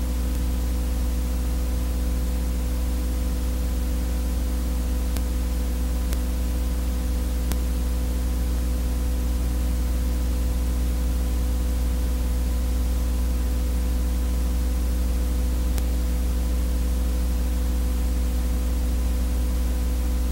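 Steady electrical buzz with hiss on the audio track of a silent 8mm film transfer: a heavy low hum with a stack of steady overtones above it, unchanging throughout, and a few faint ticks. It is noise from the transfer, not sound from the scene.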